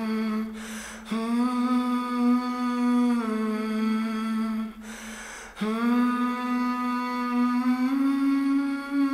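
Soundtrack music: a single voice humming long, held notes with no instruments, the pitch stepping up or down only a few times, broken twice by a short breath.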